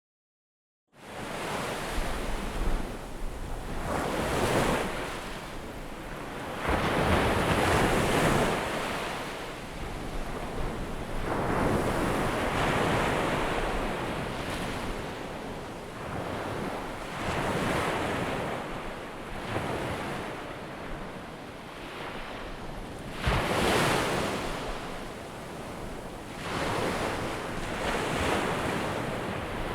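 Ocean surf: waves breaking and washing in, swelling and fading in slow surges every few seconds. It begins about a second in.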